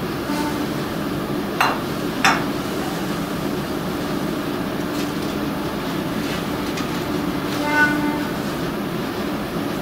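Steady low rumbling background noise, with two short sharp clicks about one and a half and two and a half seconds in, and a brief ringing tone near the end.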